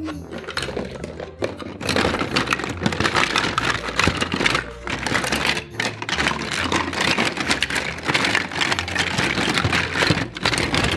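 Plastic Play-Doh molds and tools clattering and knocking together as hands rummage through a plastic storage bin: a busy, irregular run of clicks and rattles.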